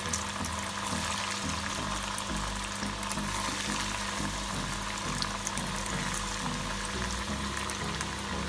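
Breadcrumb-coated chicken nuggets deep-frying in hot oil: a steady sizzle with many small crackles and pops.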